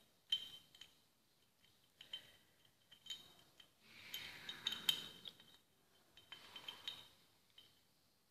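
Small metal parts of a starter motor clicking and clinking lightly as they are handled and fitted together by hand, each click with a brief ringing, in scattered little clusters, with a soft rubbing sound about four to five seconds in.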